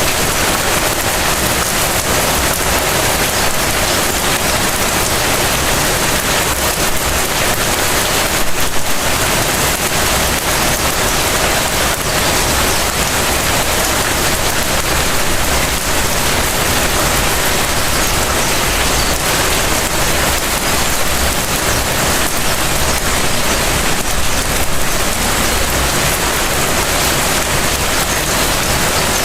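Light rain falling steadily on surfaces: an even, continuous hiss of drops, briefly a little louder about nine seconds in.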